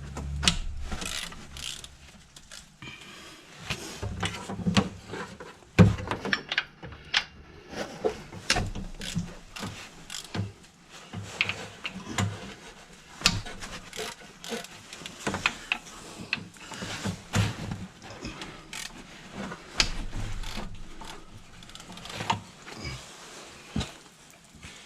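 Hand tools working on an engine pulley: irregular metallic clicks and clanks of a socket and wrench on metal, with one louder knock about six seconds in.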